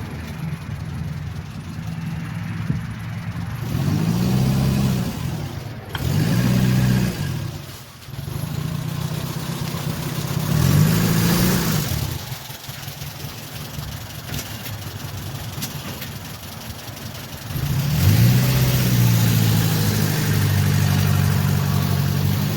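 Renault R8/R10's rear-mounted four-cylinder engine running on its first start after the automatic transmission rebuild, revved up and let fall back about four times, with a lower, steadier idle between the revs.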